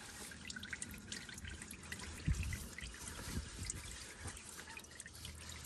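Engine oil trickling and dripping into a drain pan with scattered small drips, faint: the last of the oil running off after the oil filter has been taken off.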